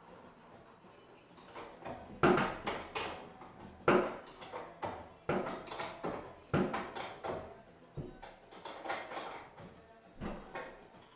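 A series of sharp knocks and clanks, about six louder hits a second or so apart, with lighter rattling between them, starting about two seconds in.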